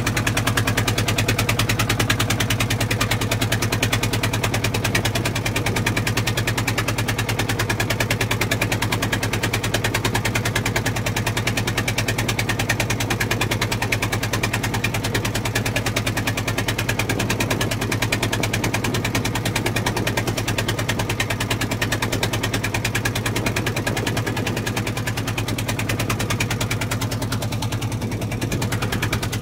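A fishing boat's engine running steadily while the boat is underway, making a rapid, even chugging.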